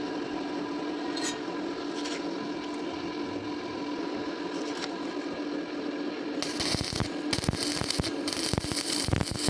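A steady electrical hum, then, about six and a half seconds in, the dense irregular crackle of an electric welding arc striking and burning.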